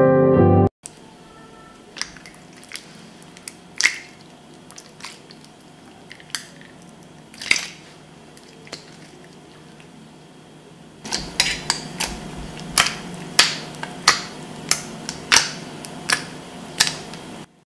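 Clear green dish-soap-and-salt slime being stretched, squeezed and pressed by hand, giving wet, sticky clicks and pops. About eleven seconds in the pops get louder and come quicker, roughly two a second. Background music cuts off just under a second in.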